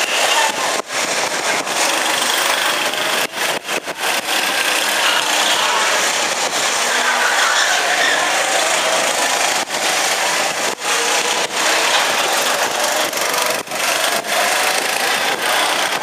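Go-kart engines running and revving as karts lap the track, a steady buzzing drone with pitch rising and falling, broken by several brief dropouts.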